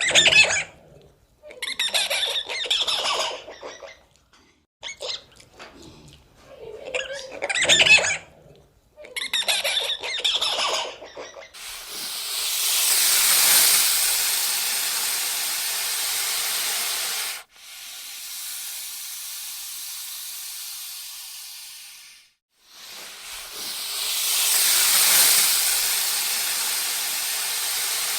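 Five short bursts of high squealing animal calls, then long stretches of loud hissing noise.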